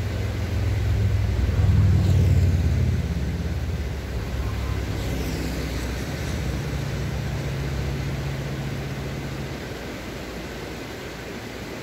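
Motor vehicle engine running somewhere out of sight with a low hum, loudest about two seconds in and slowly fading away, over the steady rush of a small stream.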